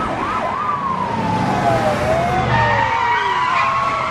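Police car sirens: a fast yelp in the first second, then several overlapping wails gliding down and up in pitch, over the rumble of car engines.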